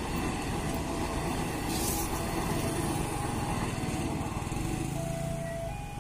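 Electric train rolling across a road level crossing: a steady rumble and clatter of wheels on rails, mixed with small motorcycle engines idling nearby.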